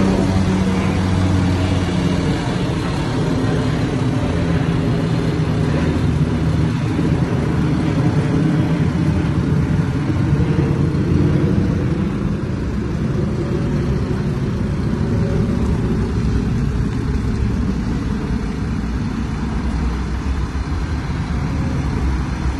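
Diesel engine of a MAN TGS 32.360 concrete mixer truck running steadily, heard up close.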